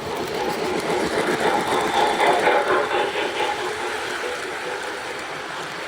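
O gauge model train running along the track: a steady rumble of wheels on rail and motor, a little louder between about one and a half and three seconds in.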